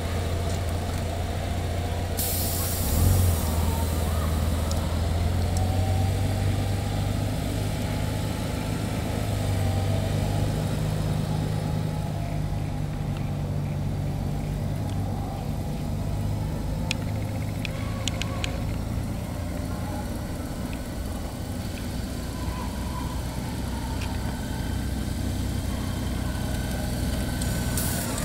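Honda Gold Wing's flat-six engine running steadily at low speed as the touring motorcycle rolls slowly over a dirt surface. About two seconds in, a brief hiss ends in a thump.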